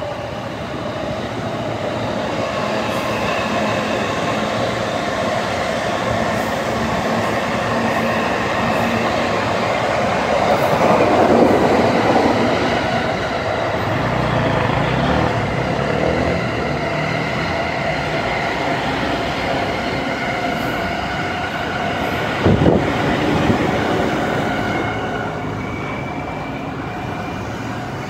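Electric commuter trains running over the rails on a multi-track main line, a steady rush of wheels and running gear that swells loudest about a third of the way through, with a faint high whine and a single sharp knock about three-quarters of the way in.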